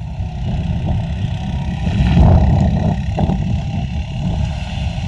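A quad ATV's engine running and revving as it rides close past and then pulls away down the dirt track, with a heavy low rumble throughout.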